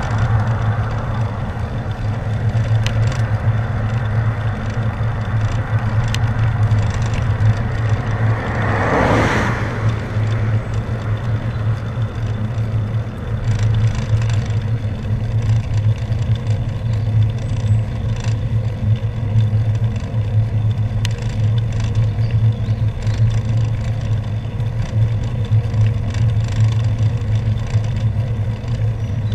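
Steady low wind rumble and road noise on the microphone of a moving bicycle. About nine seconds in, a car passes the other way in a brief rush that swells and fades.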